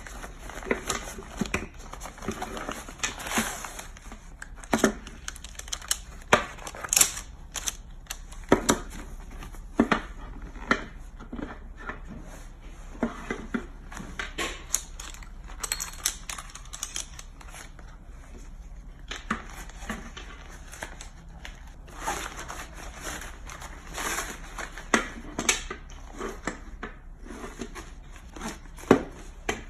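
Nylon fabric rustling and crinkling as a small folding camp chair is unpacked and assembled, with many sharp clicks and knocks from its metal frame poles.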